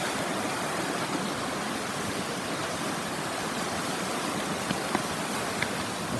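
Upland mountain stream flowing steadily beside the camp. A few small clicks sound near the end.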